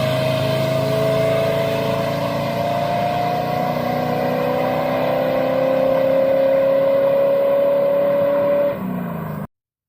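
A car engine running hard, with a long high tone that slowly rises in pitch over several seconds. The sound breaks off suddenly near the end.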